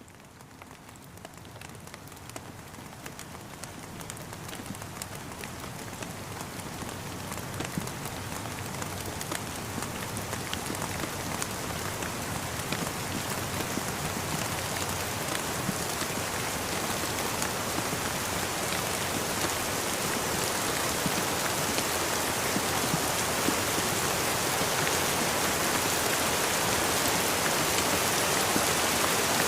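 Steady rain with scattered drop taps, fading in gradually from faint to full over the whole stretch.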